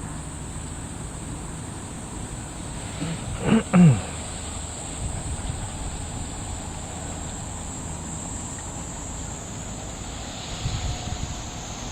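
Insects, crickets or cicadas, buzzing steadily at a high pitch. About three and a half seconds in come two quick loud calls, each falling steeply in pitch, and near the end a few soft low knocks.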